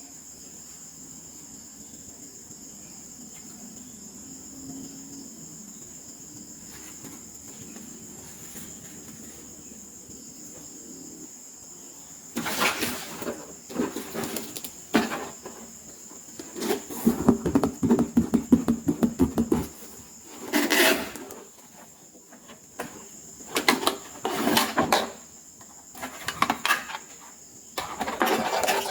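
Steady faint hiss with a thin high tone, then, from about halfway through, irregular bursts of crinkling and clattering: plastic packaging and small plastic toy pieces being handled during unboxing.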